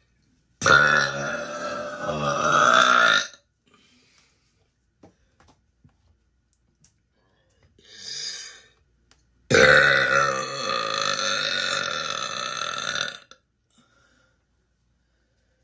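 A woman's long, loud burps: two of them, each about three seconds, the first starting under a second in and the second about nine and a half seconds in.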